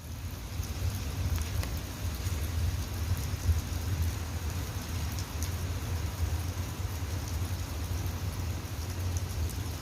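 Steady rain falling, with scattered small drop ticks over a continuous low rumble.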